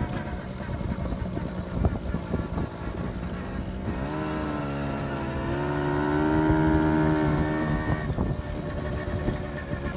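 Tomos 50cc two-stroke moped engine under way, over a gusty rush of wind noise. About four seconds in, the engine revs up into a steady buzz, holds it for a few seconds as the loudest sound, then drops back near the end.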